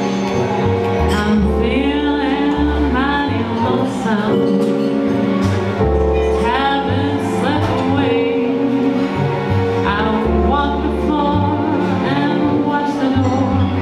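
Live small-group jazz: a woman sings a slow, gliding vocal line over walking upright double bass and chords on a Yamaha Montage keyboard.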